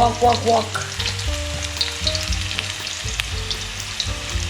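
Meatballs frying in a wok, sizzling steadily with scattered small crackles and pops.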